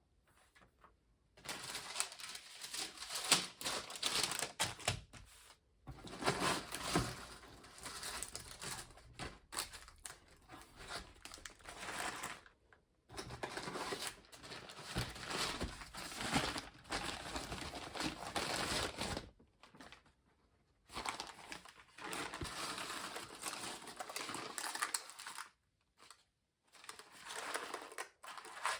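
Crinkling and rustling of something being handled, in spells of a few seconds with short pauses between.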